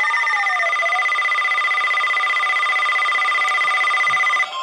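Electronic alert tones between emergency alert broadcasts: a loud steady high tone with a second tone sliding up and down in pitch during the first second, then a series of short beeps, all cutting off suddenly about four and a half seconds in.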